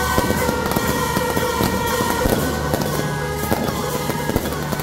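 Firework cakes set out on the ground firing, a dense rapid crackle of small reports, with music playing alongside in steady held tones.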